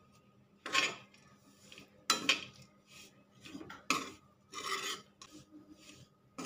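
Metal spatula scraping and turning ground coriander and chopped dry fruit around a metal kadhai, in several separate strokes, as the mix is dry-roasted on a low flame.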